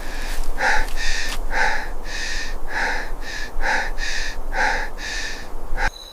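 A person panting heavily, with rapid gasping breaths in and out at about two a second; it stops abruptly near the end.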